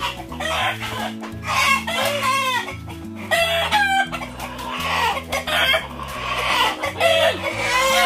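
Chickens squawking and clucking loudly in repeated arching calls while one is grabbed and held by hand, over background music.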